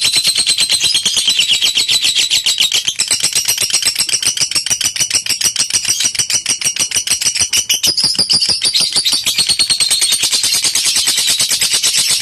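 Lovebird 'ngekek': a long, unbroken, rapid chattering trill of short high notes, shifting slightly in pitch a couple of times. This is the extended chatter that Indonesian lovebird keepers play as a master recording to provoke other lovebirds into ngekek.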